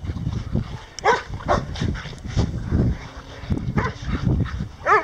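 Dogs growling and barking while they wrestle in play, in rough repeated bursts. Several short yelps are mixed in, with a high yip just before the end.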